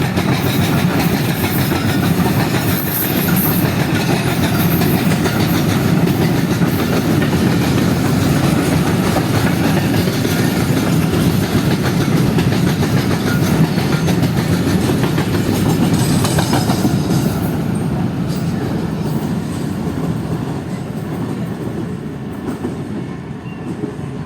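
Wagons of a long furnace-oil freight train rolling past, wheels clattering steadily over the rail joints. The sound fades over the last few seconds.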